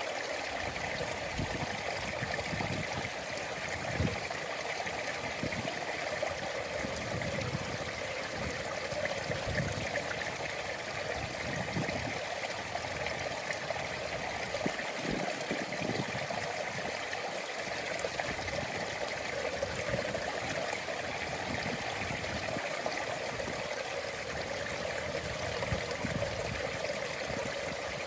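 Stream water flowing and trickling in a steady, even rush, with irregular soft low rumbles beneath it.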